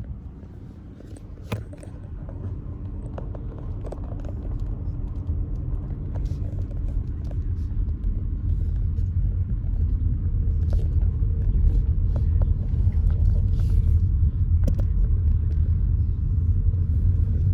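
Low rumble of a car driving, heard from inside the cabin, growing steadily louder as it picks up speed. A couple of sharp clicks stand out, one about a second and a half in and one near the end.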